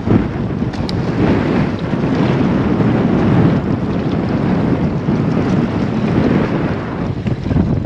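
Wind buffeting the microphone in a heavy, uneven rumble, with choppy water washing against shoreline rocks underneath.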